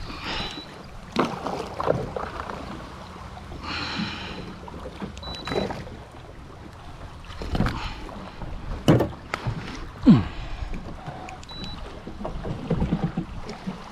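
Water sloshing and splashing with irregular knocks, the sharpest about 9 and 10 seconds in.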